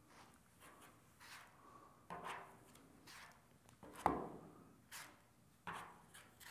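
A hand spreader drawn across soft body filler on a car panel: a handful of faint scraping swipes, the clearest three about two, four and five and a half seconds in, each fading quickly.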